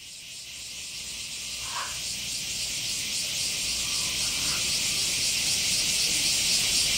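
Summer cicada chorus: a dense, steady shrill hiss with a slight pulsing, fading in over the first few seconds.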